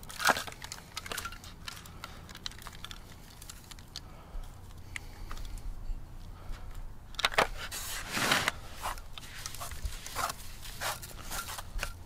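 Hand-work sounds as a Chimayo red chili dry rub goes onto pork butts in an aluminum foil pan: scattered light clicks, rustles and scrapes. There are louder rustling bursts about seven and eight seconds in.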